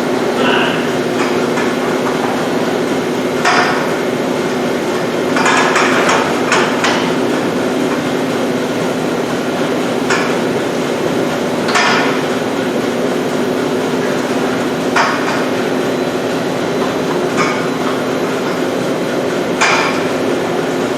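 Milking parlor equipment running: a loud, steady machine hum with a pitched drone, broken every second or few by short sharp clanks or hisses.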